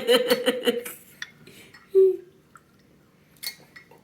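A voice trailing off in the first second, then a short hummed sound about two seconds in, and a light clink of a mug or spoon near the end.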